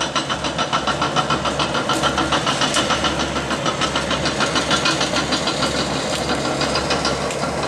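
A bulldozer's diesel engine running, with a steady rhythmic clatter of about five or six beats a second.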